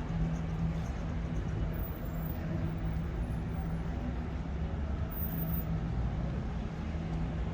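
City street traffic: a steady low rumble of vehicle engines and tyres, with a constant low hum.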